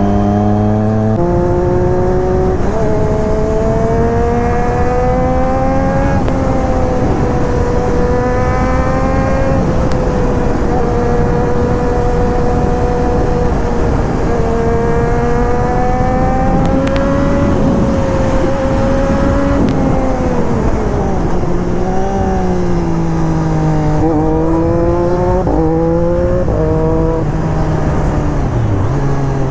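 Triumph Daytona 675's inline three-cylinder engine running under way, its pitch creeping up slowly for most of the time. Over the last several seconds the revs fall and climb back in a few quick jumps, over a steady rushing noise.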